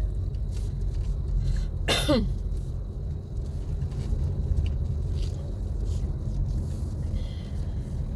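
Steady low road rumble inside a moving car's cabin, with a single cough about two seconds in.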